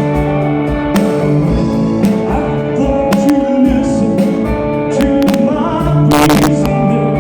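Live band playing mod-style rock at a sound check: electric guitar and drums, with a louder, noisy burst about six seconds in.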